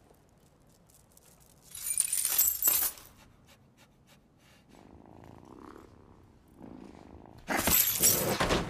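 A brief loud jingle like jewellery or coins, then soft purring, snuffling creature sounds from the Niffler, and a loud clattering crash near the end as it leaps across the display table.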